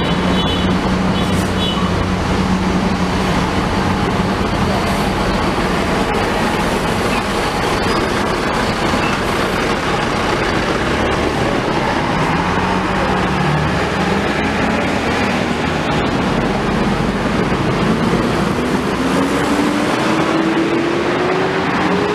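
Diesel engine of a large intercity coach bus running as it moves slowly past at close range, over steady road-traffic noise. Near the end an engine note rises steadily as a vehicle accelerates.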